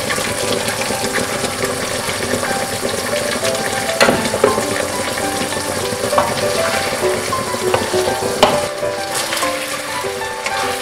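Chicken feet sizzling and bubbling in a thick, reduced sauce in a nonstick pan while being stirred, with a few sharp utensil knocks against the pan. Background music plays over it.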